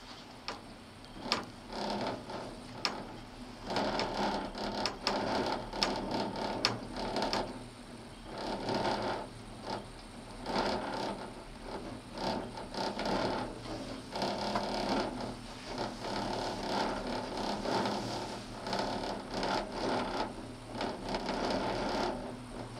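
Mechanical rattling and whirring inside a Poma 8-seat gondola cabin travelling along the cable, with creaks and sharp clicks from the cabin, most of them in the first seven seconds.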